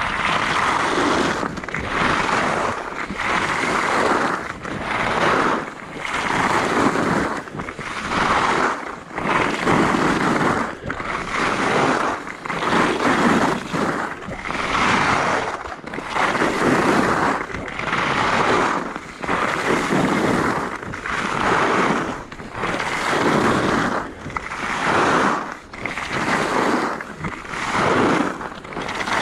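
Skis carving linked turns on a groomed piste: the edges scrape the snow in a rhythmic swell about every one and a half seconds.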